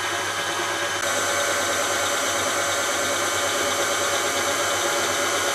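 KitchenAid Classic stand mixer running steadily, its motor whining as the beater turns flour and fat into dough in the steel bowl; it gets a little louder about a second in.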